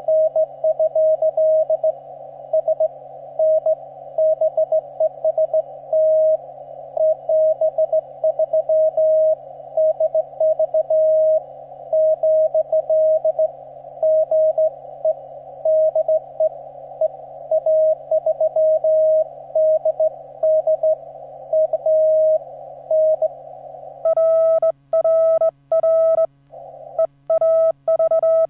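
Morse code on a ham radio transceiver: a single steady-pitched tone keyed in dots and dashes, received in a narrow band of filtered static. About 24 seconds in the static drops out and the tone becomes the transceiver's sidetone as the operator sends on a straight key, each element cleanly keyed against silence.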